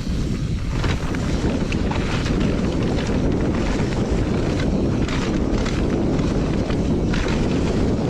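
Wind rushing over the camera microphone while riding a mountain bike fast down a trail, with scattered clicks and rattles from the tyres and bike over the dirt.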